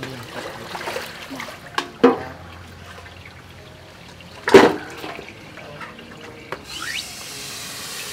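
Water splashing as greens are rinsed by hand in steel bowls, with two sharp knocks, the louder about four and a half seconds in. Near the end a garden tap starts running steadily into a metal bowl.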